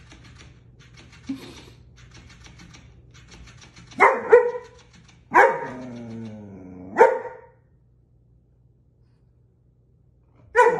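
Young German shepherd barking at a moving toy fish. A quick double bark comes about four seconds in, then single barks at about five and a half and seven seconds, and one more near the end. The longer barks trail off falling in pitch.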